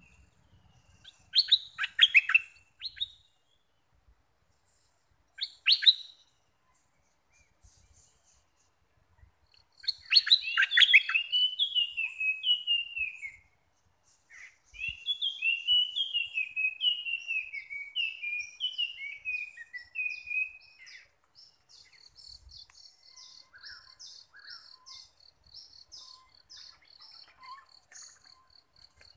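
Bulbul song: short bubbly phrases, then a loud warbling phrase about ten seconds in and a run of falling whistled notes after it. In the last part a fainter, fast, even trill of short high notes carries on.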